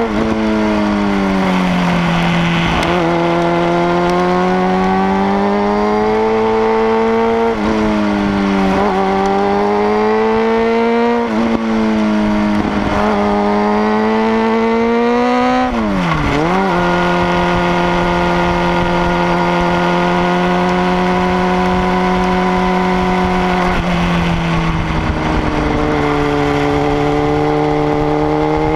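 Sport motorcycle engine heard from the bike itself as it is ridden on a twisting road. Its pitch climbs and drops sharply several times with the throttle, then holds steady for several seconds in the second half, with a rushing noise of wind over the microphone.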